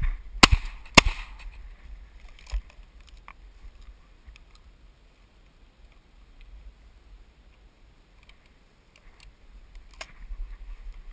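Two shotgun shots about half a second apart, close to the microphone, each with a short echo, followed about a second and a half later by a duller thump; after that only faint field noise and a few small clicks.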